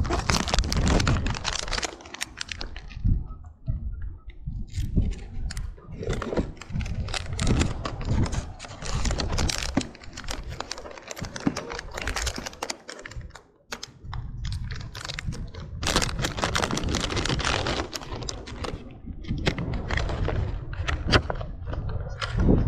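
Close-up handling noise of fishing tackle: a long run of irregular clicks, taps and crackles, with a low rumble underneath.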